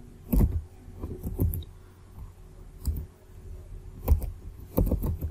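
Irregular computer keyboard keystrokes, about eight separate clicks as a line of code is typed.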